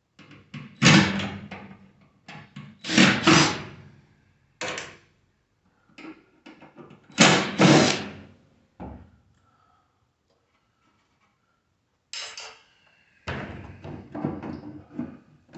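Metal clanking and rattling from a microwave oven's sheet-metal housing and parts as the magnetron is worked loose and pulled out. The noise comes in several separate bursts of knocks and clatter.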